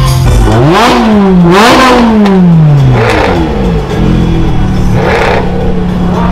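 V8 sports car engine revved twice in quick succession, the pitch climbing and falling away each time, with crackles and pops from the exhaust on the lift-off. It then settles to a steady idle, with one more burst of crackle.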